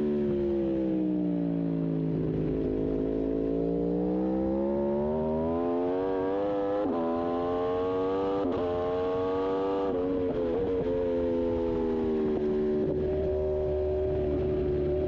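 Aprilia RSV4 1100 Factory V4 engine at race pace, heard onboard. Revs fall off over the first couple of seconds, then climb hard with two quick upshifts a second and a half apart, each a sudden drop in pitch, before falling off again about ten seconds in and holding steady near the end.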